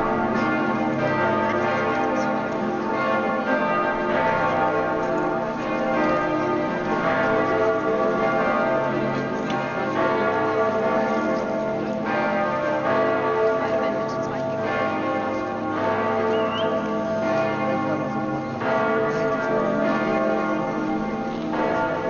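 The bells of Munich's Frauenkirche cathedral ringing together in a full, continuous peal, the strokes of several bells overlapping. It is the ringing for the death of a pope.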